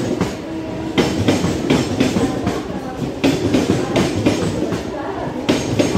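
Mumbai suburban electric local train (Central Railway EMU) running along the platform: a steady rumble of the coaches with repeated clattering knocks of the wheels over rail joints.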